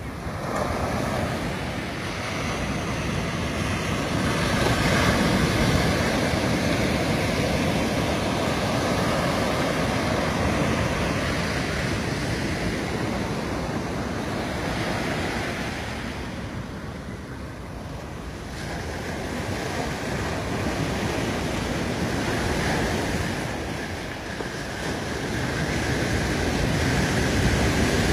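Ocean waves breaking and washing up a sandy beach, the surf noise swelling and easing in long surges, with a brief lull about two-thirds of the way through.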